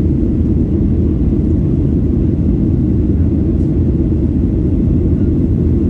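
Steady low roar of a jet airliner in flight, engine and airflow noise heard inside the passenger cabin.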